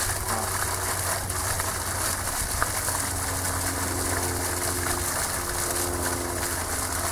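Water from a newly installed submersible well pump gushing up out of the open well pipe and splashing onto the ground, a steady rushing with a low hum underneath. This is the pump's first run, flushing dirty, chlorinated water out of the well.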